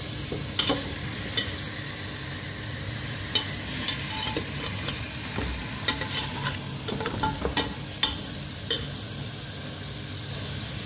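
Raw mutton pieces sizzling steadily as they fry in ghee over low-medium heat in a pressure cooker pot, at the stage where the meat is being seared until it turns white. A metal slotted spatula scrapes and knocks against the pot about nine times while the meat is turned.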